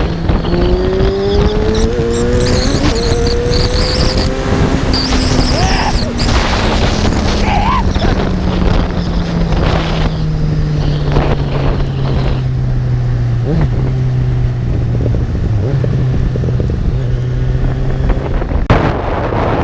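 Kawasaki Z1000's inline-four engine under way, with wind rushing on the microphone. The engine pitch rises over the first few seconds as the bike accelerates, then falls slowly as it eases off and settles into a steady cruise. A brief loud rush of noise comes near the end.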